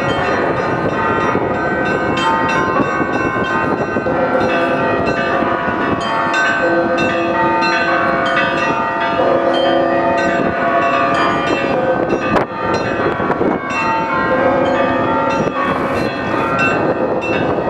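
Russian Orthodox cathedral bells ringing together in a continuous peal. Many bells of different pitches are struck in quick succession, and their tones ring on and overlap.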